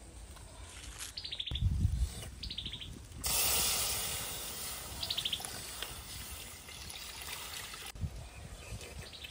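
Water poured into a hot, dry wok sizzles, hissing in suddenly about three seconds in and fading away over the next few seconds. Low thumps come just before it, and small birds give short chirping trills around it.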